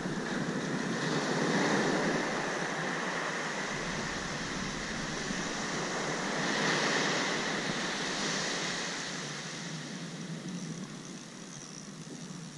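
Surf breaking and washing up a sand beach, a steady rush that swells about two seconds in and again around seven seconds, then eases off near the end.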